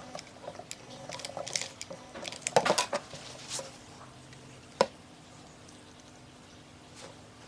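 Light clicks and taps of small hard objects being handled, bunched together, then one sharp click, over a faint steady hum.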